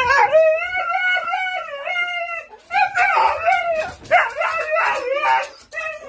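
A husky howling and yowling in long, wavering calls, with a short break about two and a half seconds in.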